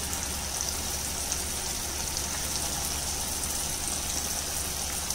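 Veg manchurian balls deep-frying in hot oil in a wok: a steady sizzle with fine crackling.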